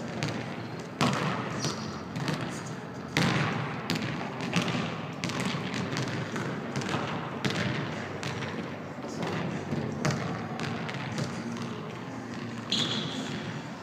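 Basketballs bouncing on a hardwood gym floor: irregular dribbles and heavier thuds during one-on-one play, with a short high squeak near the end.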